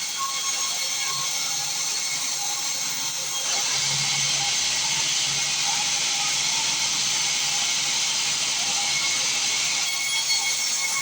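Sawmill band saw running with its blade cutting through wood, making a steady hiss. It gets a little louder about three and a half seconds in.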